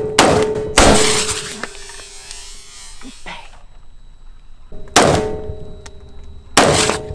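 Rifle shots from a 7.62x39 Galil and a .223 AR-style rifle: two shots close together near the start and two more later, spaced about a second and a half apart. Under them runs the steady whine of the cordless drill spinning the target arm.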